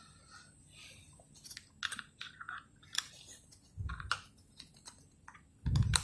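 Small plastic clicks, ticks and rubbing as a TV remote control's plastic battery cover is slid back into place over the batteries, with a couple of short dull handling thumps about four seconds in and near the end.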